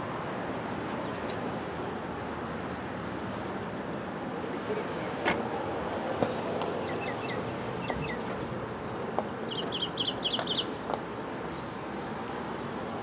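A sharp wooden clack about five seconds in and another about a second later, a croquet mallet striking a ball, over a steady background hiss. Small birds chirp in short calls, with a quick run of chirps about ten seconds in.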